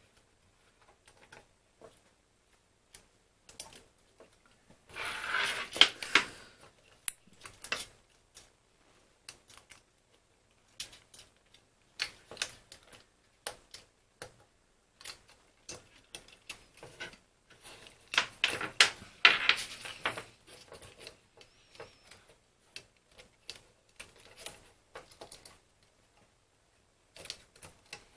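Irregular small clicks and taps of plastic phone parts being handled and fitted together, with two longer, noisier stretches of handling about five seconds in and again near twenty seconds.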